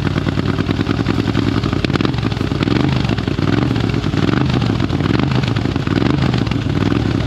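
Classic racing motorcycle engine running steadily, a little louder from about three seconds in.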